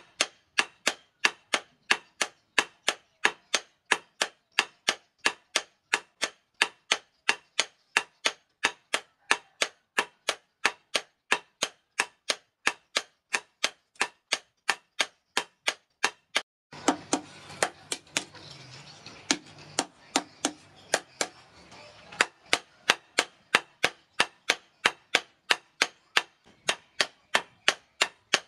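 Hand hammer forging a red-hot steel blade on a steel anvil: sharp metallic blows in a steady rhythm, about two and a half a second. A rushing noise sits under the blows for a few seconds just past the middle.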